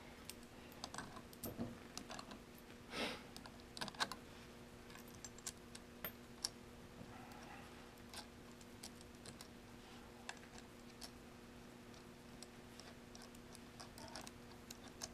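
Scattered light metallic clicks and taps of small clutch parts being handled as Rekluse clutch springs are popped into place on the pressure plate, with a faint steady hum underneath.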